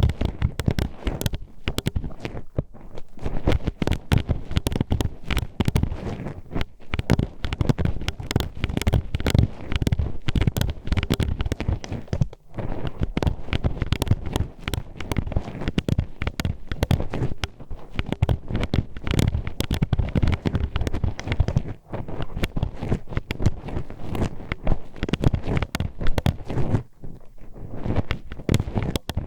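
Metal hairpin poked into and scraped around an ASMR microphone's ear, giving dense, irregular close-up clicking and crackling.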